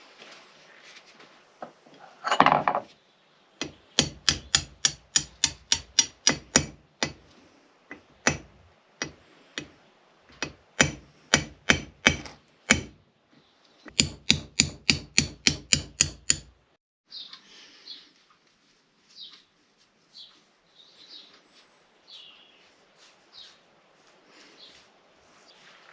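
Repeated hammer blows in three quick runs of about three to four strikes a second, after one louder scrape or clatter, followed by lighter scattered knocks and clicks.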